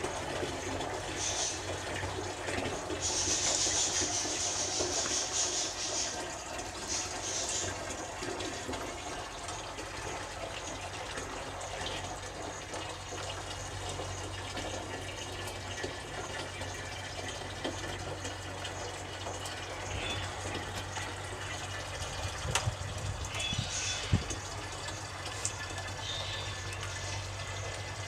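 Tap water running steadily through plastic tubing and a flow sensor, at about 12 litres a minute, with a steady low hum underneath.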